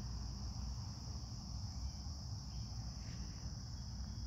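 Steady high-pitched chorus of trilling insects from the grassy meadow, over a low steady rumble.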